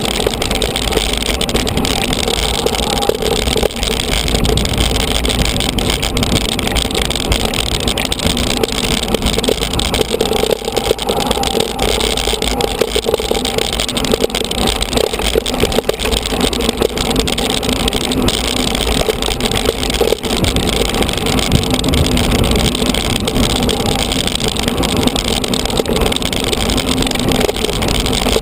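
Mountain bike riding over a loose gravel track: tyres crunching on stones, steady wind rumble on the microphone and a constant stream of small rattles and clicks from the bike on the rough surface.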